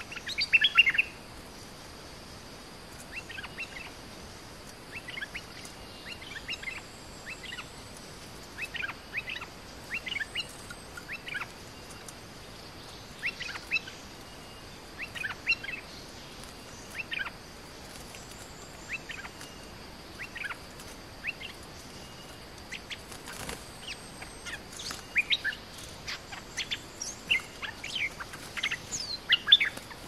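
Bulbuls calling: short, bubbly chirping phrases repeated every second or two, loudest just after the start and coming faster near the end.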